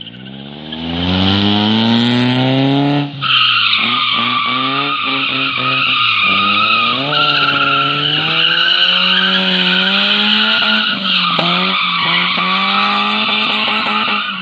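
Car drifting in circles: tyres squealing continuously on concrete while the engine is revved hard, its revs climbing and falling again and again, with short lifts off the throttle about three seconds in and again near eleven seconds.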